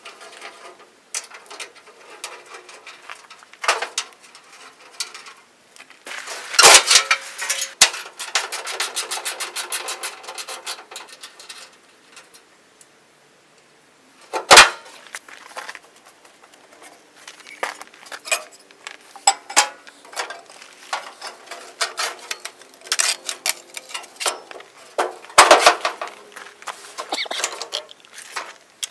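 Hand-tool and sheet-metal work on the front end of a Massey-Harris 30 tractor: scattered knocks, clanks and scrapes as the grille and hood are unbolted and worked loose. Includes a few seconds of fast, dense clicking and several sharp knocks, the loudest about halfway through.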